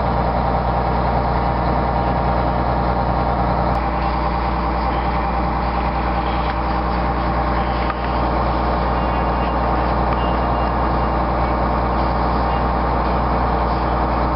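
Snowcat groomer's diesel engine running steadily under work, its note shifting about four seconds in.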